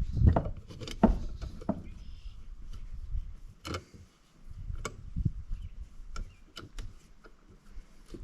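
Tools and small metal parts handled on a workbench: irregular clicks and knocks, several close together in the first two seconds and scattered after, as the valves, springs and retainers are fitted to the cylinder head.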